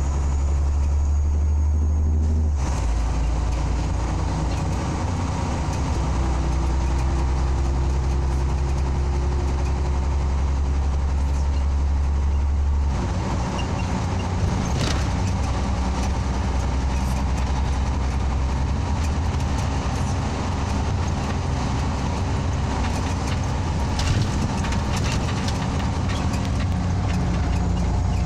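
Scania OmniLink CL94UB city bus under way, heard from inside the passenger cabin: a steady engine drone with tyre and road noise. The engine note shifts about two seconds in and again near the middle, with a few brief rattles later on.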